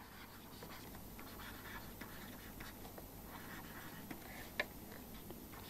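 Faint scratching of a pen writing by hand, in light short strokes, with one sharper tap of the pen tip a little over four and a half seconds in.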